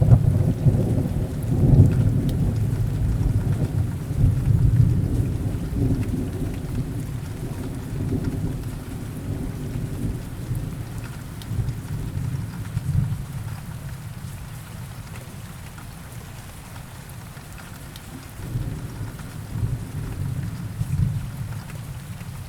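Steady rain with rolling thunder: a deep rumble breaks loudly at the start and fades over about ten seconds, and another swells near the end.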